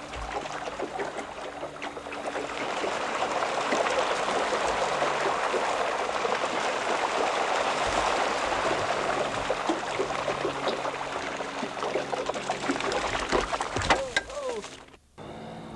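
Steady rushing, splashing water, building up over the first couple of seconds and holding, with a sharp knock near the end and a brief dropout just before the end.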